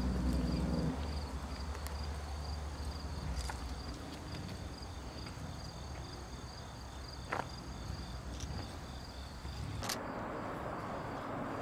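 Insects chirping in a fast, even pulsing rhythm, stopping about ten seconds in, over a low outdoor rumble with a few scattered sharp clicks.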